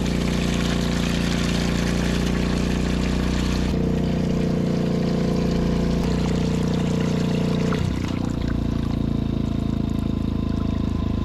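Water running from a hose into a plastic bucket, filling it, over a steady low motor hum.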